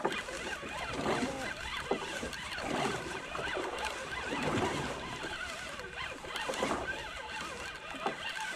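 Boat ambience on open water: a steady wash of wind and water, with faint, indistinct voices in the background.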